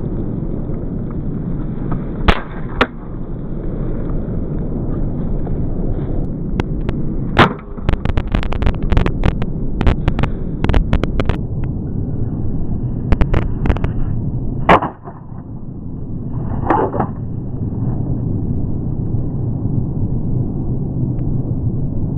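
Steady low rumble of wind on the microphone, broken by sharp cracks and snaps of hard plastic being broken: two loud snaps about two seconds in as a CD is snapped in gloved hands, then a dense run of cracks and clicks between about seven and twelve seconds in and a few more after.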